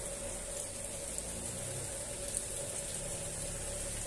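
Steady rain falling on trees and grass, a continuous hiss with a faint steady hum underneath and a couple of light ticks.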